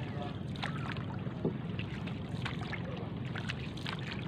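Paddle strokes from a small paddled boat: the blade dipping and pulling through the water with light splashes and a few soft knocks, over a steady low rush of wind.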